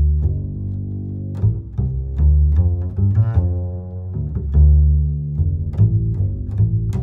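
Background music of low string instruments, cello and double bass, playing a line of held notes.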